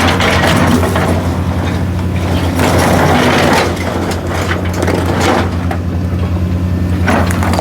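Crane barge's diesel engine running steadily with a constant low hum, with several swells of louder, rushing noise over it, typical of split stone being handled and dumped.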